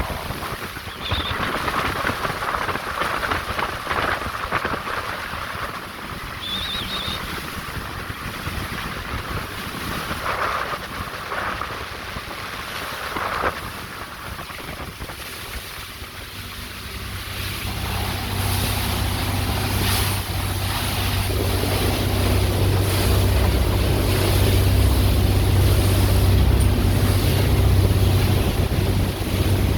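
Motorboat running through choppy water: wind and splashing over the hull, then from a little past halfway a steady low engine drone that grows louder and holds.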